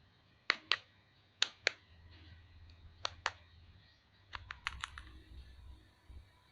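Sharp clicks, mostly in pairs a quarter second apart, then a quick run of five or six a little after the middle, like plastic toy parts or packaging being clicked and handled.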